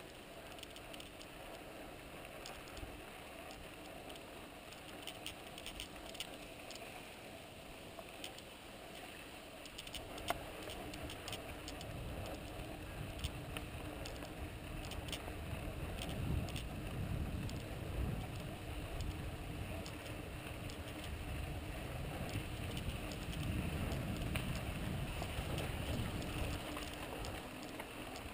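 Santa Cruz Tallboy LT mountain bike rolling along a packed-dirt trail: a steady tyre-on-dirt hiss with scattered small clicks and ticks, and a low rumble that grows louder from about ten seconds in.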